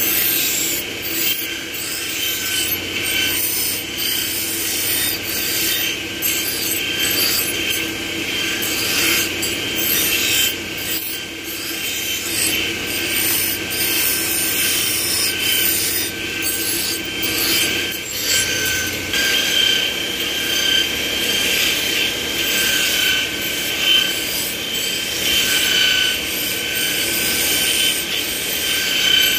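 Steel plier blanks being ground against a motor-driven abrasive grinding wheel: a steady, loud rasping grind over the whine of the spinning wheel. About two-thirds of the way through the low hum changes as work moves to a second grinding wheel.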